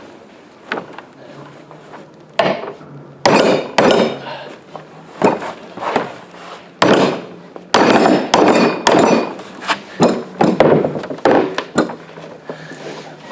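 Hammer blows on metal, a dozen or so irregular strikes with a short clanking ring, heaviest in the middle: beating on a seized threaded pipe fitting to break it loose.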